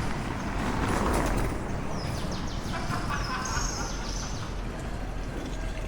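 City street ambience: a steady low hum of traffic, swelling briefly about a second in as something passes, with a few faint high chirps or clinks a couple of seconds later.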